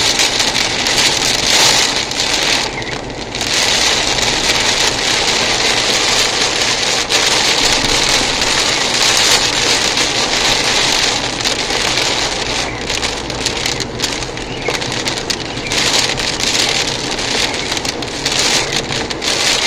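Heavy rain pelting a car's windscreen and roof, heard from inside the moving car: a dense, steady hiss of drops with a low rumble of the car beneath.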